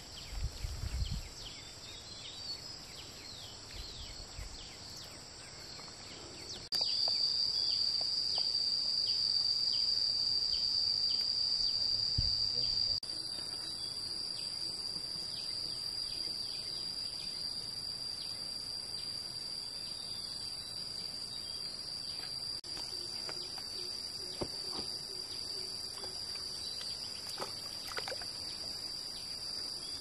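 Steady, high-pitched drone of a chorus of insects, which gets louder about seven seconds in and drops back about six seconds later.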